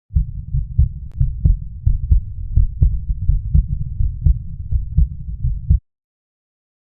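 Heartbeat sound effect: deep, paired lub-dub thumps repeating at a steady pace over a low rumble. It cuts off abruptly near the end.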